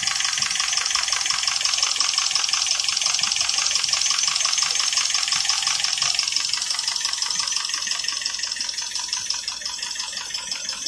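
Chevrolet Epica's six-cylinder engine running with an even, rapid rhythmic beat, a little fainter near the end. The mechanic takes its sound for a worn-out engine: one failed piston and weak piston rings, with blow-by and smoke.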